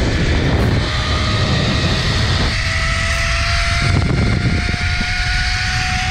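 Zipline trolley pulleys running along the steel cable with a steady whine that rises slowly in pitch as the rider gathers speed, under heavy wind buffeting on the microphone.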